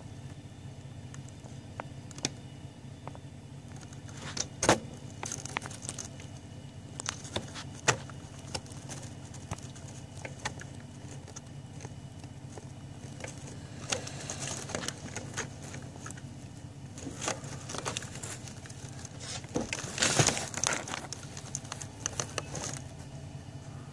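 Steady low hum of a truck's engine idling, with scattered sharp clicks and short rattles over it, most of them in a cluster about twenty seconds in.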